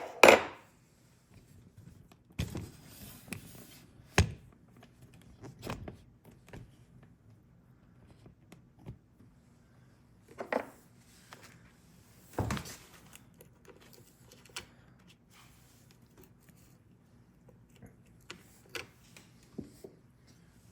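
A few sharp knocks and taps at uneven intervals, the loudest two right at the start, with quieter clicks and handling sounds between them. They are the sounds of tapping and working on a Ford door lock cylinder being reassembled at the bench.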